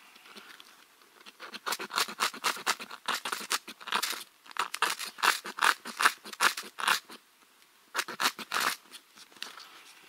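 A tiny FireFly ferro rod being scraped hard and fast, throwing sparks: a quick run of rasping strokes, about three to four a second, a short pause, then a few more strokes near the end.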